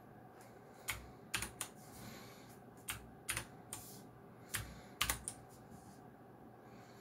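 Geekstar–Deck Hassium Pro 108 mechanical keyboard with clicky blue (Cherry MX-style) switches being pressed: about a dozen sharp key clicks in uneven clusters, starting about a second in and stopping a little after five seconds.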